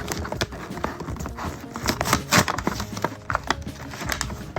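Hard plastic toy parts and packaging being handled, giving a run of irregular clicks and knocks.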